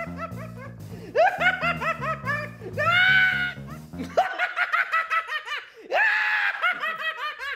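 A man laughing loudly in rapid, repeated bursts over background music. The music's low notes drop out about four seconds in, and a strong burst of laughter comes about six seconds in.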